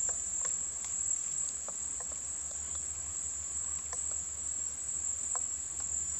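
A steady, high-pitched insect trill, with a scattering of light, irregular taps of a crimson-crested woodpecker pecking at wood.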